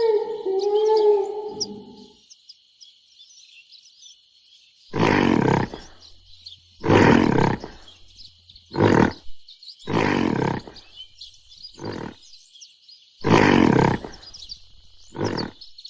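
Gorilla roaring: seven harsh, pulsing roars of uneven length in the second half, with birds chirping steadily in the background.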